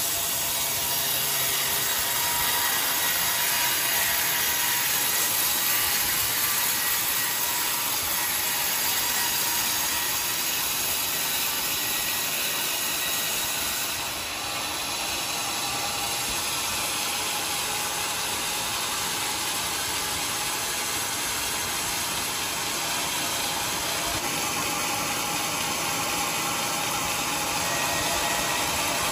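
Large sawmill band saw running and cutting lengthwise through a big teak log, a steady mechanical sawing noise with a strong high hiss. The level dips briefly about halfway through, then the sawing continues.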